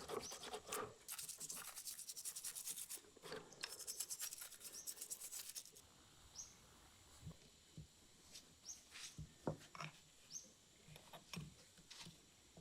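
Rapid rubbing or scrubbing strokes on a metal lamp part during cleaning. About six seconds in they stop, giving way to scattered light clicks and taps.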